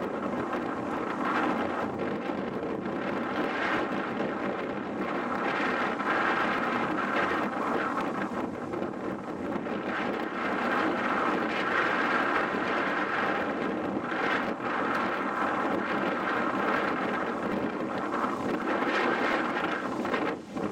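Strong, gusty storm wind buffeting the microphone, a steady rush that swells and eases every few seconds, with a brief dip near the end.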